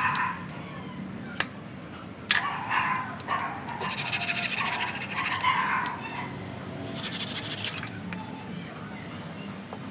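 Pruning shears snip once about a second and a half in and again a second later. Then a hand tool scrapes in quick, rasping strokes over the bare trunk of a ficus bonsai stock, in two bouts.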